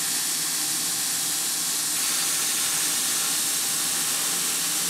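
Belt grinder running at full speed with a worn 36-grit belt, grinding the edge of an 80CrV2 steel chef's knife blade: a steady, high hiss of abrasive on steel.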